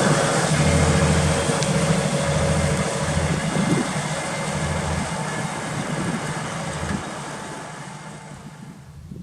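Claas Axion 830 tractor's engine running steadily under load as it pulls a plough, then fading away over the last two seconds as the tractor moves off.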